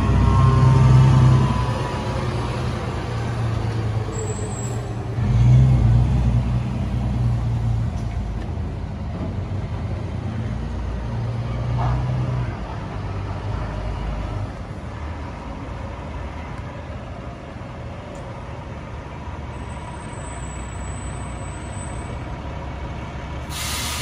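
Fire truck's diesel engine running in surges as it drives off down the street, the tail of its siren wailing and fading out within the first second or so. After that the engine settles into a steady lower drone under general street traffic.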